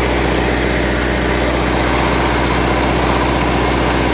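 Massey Ferguson 375 tractor's four-cylinder diesel engine idling steadily at low revs while it drives a homemade flour mill.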